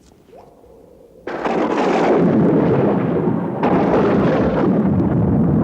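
A loud noise that starts suddenly about a second in and carries on steadily, rough and spread across low to high pitches.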